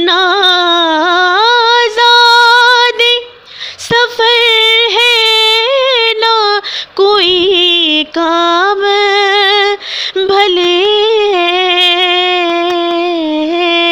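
A woman singing an Urdu naat solo, drawing out long held notes with ornamented, wavering pitch in about five phrases, each broken off by a brief pause for breath.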